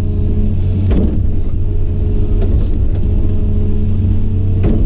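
Excavator's diesel engine running steadily with a low drone, with two brief knocks, about a second in and near the end.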